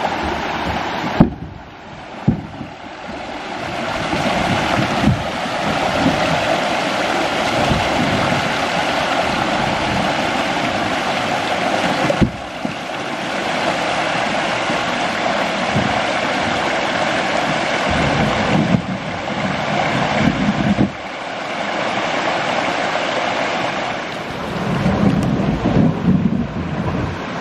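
Rushing whitewater of a river cascade, a loud steady rush of falling water, broken by a couple of sharp knocks in the first few seconds.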